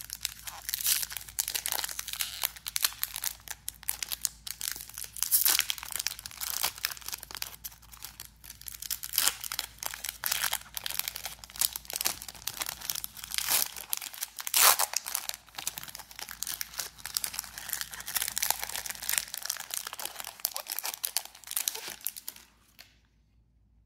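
Foil wrapper of a Topps Chrome trading-card pack crinkling and tearing as it is opened by hand, a dense run of crackles. The rustling stops shortly before the end.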